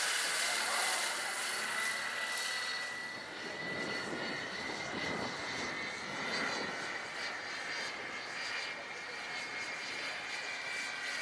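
Electric scale model helicopter (Eurocopter EC-135, about 1.6 m rotor) in flight: a steady high whine from the electric drive over the even rush of the spinning rotors, dipping slightly in level about three seconds in.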